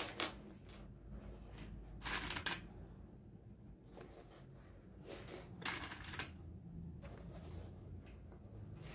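Rustling and crinkling of stiff synthetic bag fabric as the sewn lining ring is handled and pushed into the bag body. It comes in short bursts, about two seconds in and again around six seconds.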